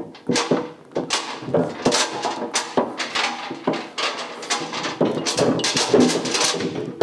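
Heavy steel column of a two-column car lift being pushed along the floor, its base plate scraping and grinding in a string of short, uneven pushes.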